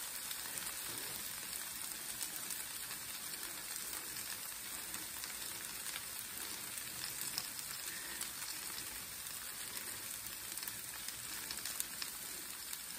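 Vegetable fajitas sizzling in a hot pan: a steady, even hiss with small scattered crackles.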